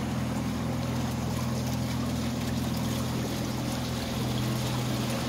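Canal day boat's inboard engine running steadily, a low even drone, with water swishing along the hull.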